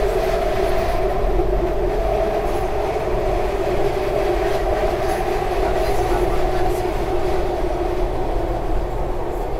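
SEPTA Market-Frankford Line train running at speed, heard from inside the car by the end door: a steady rumble of wheels on rail with a constant two-note hum.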